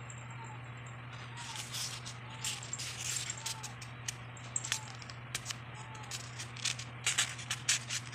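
Paperback book pages rustling and crinkling as they are handled and turned, in short irregular bursts that come thicker near the end, over a steady low hum.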